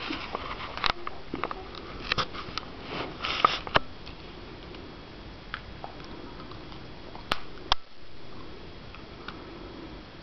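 Soft sniffing and snuffling from a golden retriever and her two-week-old puppies, with scattered small clicks and rustles. Sharper clicks come in a cluster about three seconds in and again around seven seconds.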